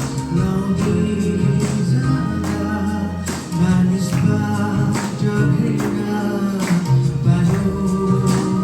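Music: a Christian worship song, a man singing over instrumental backing with a steady beat.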